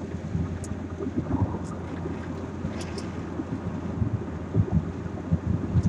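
Inside a moving car: a steady low road and engine rumble, with wind buffeting the microphone in irregular low thumps and a few faint ticks.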